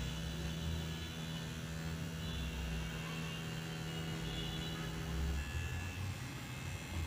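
Coil tattoo machine buzzing steadily as its needle lines lettering into synthetic practice skin, then switched off about five seconds in.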